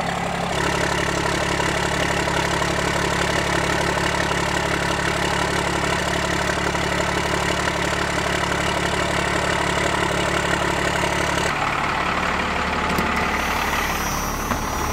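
Pickup truck engine idling steadily with an even, unchanging note; the sound shifts about eleven and a half seconds in.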